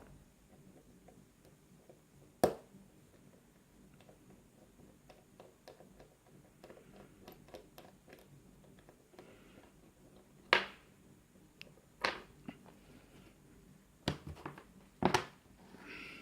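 Small metal lock parts and tools being handled as a KIK lock cylinder is taken apart: faint little ticks and scrapes, with five sharp clicks and knocks spread across, the loudest about two and a half seconds in and near the end.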